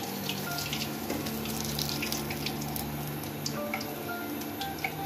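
Chicken nuggets deep-frying in hot oil in a kadhai: a steady sizzle with scattered small crackles over a low hum.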